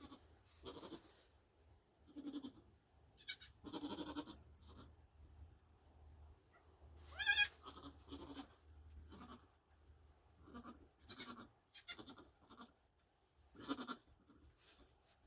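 Nigerian Dwarf goats, a doe and her newborn kids, calling in a pen: short, low grunting calls scattered throughout, and one loud, high bleat rising in pitch about seven seconds in.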